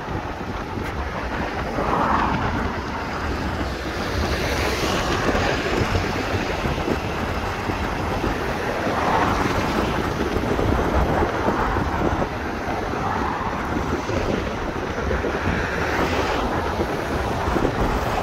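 Wind buffeting the microphone in a steady low rumble, over the hum of street traffic.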